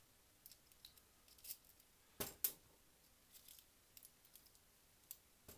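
Faint scattered clicks of small metal and plastic parts as a model locomotive's motor chassis is handled and fitted back together, with two sharper clicks a little past the middle.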